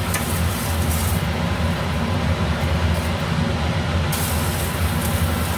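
Frozen banana leaf steaming and hissing as it is passed over a hot glass-ceramic stovetop burner to soften it, with water on the hot glass. The hiss fades in the middle and returns about four seconds in, over a steady low drone.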